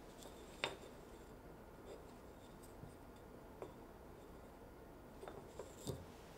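Small plywood pieces handled on a wooden workbench: a light tap about half a second in, a fainter one in the middle, and a few small clicks ending in a soft knock near the end as they are set back down, over faint room noise.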